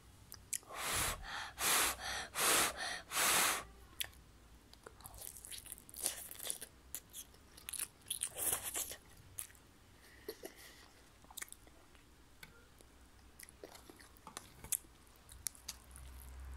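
A child eating noodles right at the microphone: four loud slurps in quick succession in the first few seconds, then quieter slurping, chewing and mouth clicks.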